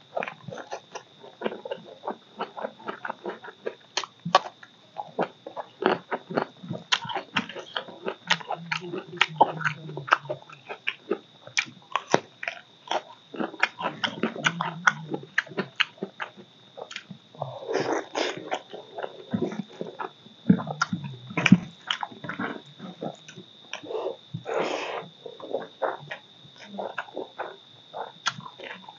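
Close-up eating sounds of a man chewing handfuls of rice and curry with his mouth open: wet chewing and lip-smacking made of many sharp mouth clicks, with a few longer slurping, sucking stretches.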